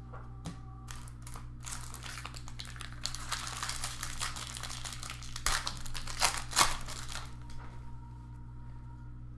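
A trading card pack wrapper being torn open and crinkled by hand, with a few sharp clicks a little past halfway.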